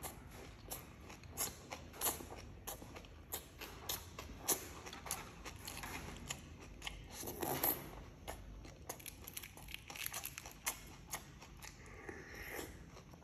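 Someone eating, with irregular sharp clicks and crunches of biting and chewing.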